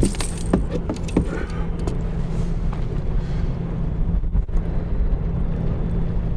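Steady low rumble with a faint constant hum, and a few sharp knocks in the first second or so as a small fish is handled aboard the kayak.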